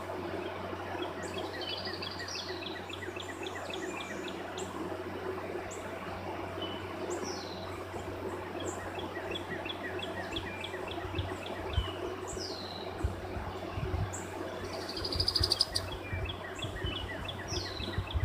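Wild birds singing outdoors: repeated falling whistled notes and quick runs of chirps, over a steady low hum. Low knocks or thumps come in during the second half and grow more frequent near the end.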